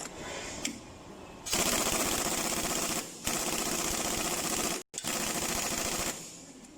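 A power tool running in three bursts of about a second and a half each, with a fast rattling beat, broken by short pauses.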